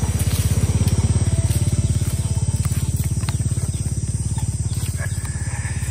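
A small engine running steadily: a low, fast, even throbbing rumble, with a few faint clicks over it.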